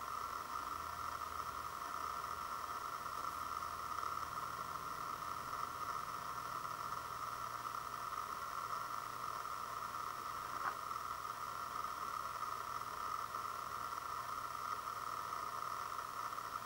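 Steady hiss of background recording noise with nothing happening, and one faint tick about ten and a half seconds in.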